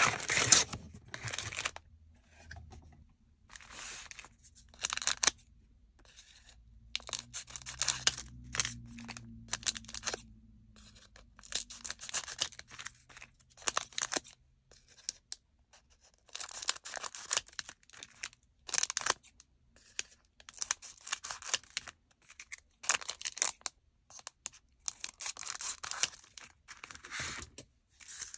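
Foil-wrapped trading card packs crinkling and rustling as they are handled, with cardboard from the box tray scraping and sliding, in short irregular bursts.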